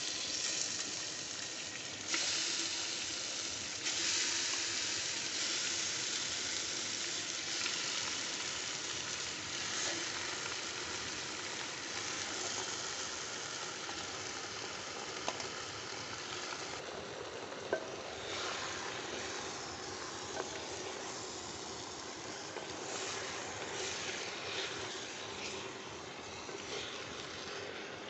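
Marinated mutton and sliced onions sizzling as they are put by hand into hot mustard oil and fried whole spices in a clay handi. The sizzle is loudest at the start and slowly eases, with a few small clicks.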